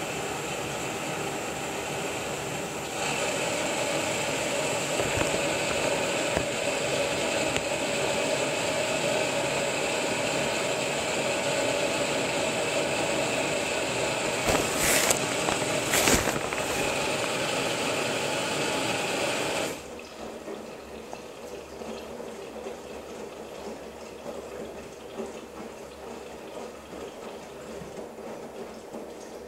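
Girbau commercial front-load washer tumbling a load in water, with a steady rush of water filling the drum that starts abruptly about 3 seconds in and cuts off suddenly about 20 seconds in. Two sharp knocks come a second apart shortly before the fill stops.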